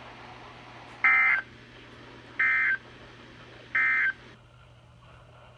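Emergency Alert System SAME end-of-message data bursts: three short two-tone digital bursts, each about a third of a second long and spaced about a second and a half apart, signalling the end of the alert message. A faint steady hum and static lie underneath.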